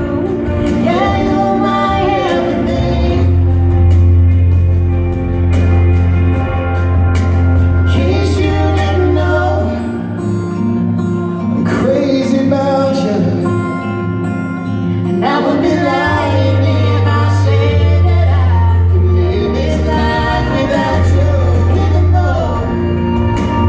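Live pop band playing a song with sung vocals over guitars, keyboard and a strong bass line, amplified through a DB Technologies DVA Mini line-array PA system in a large hall. The deep bass notes drop out for a few seconds in the middle.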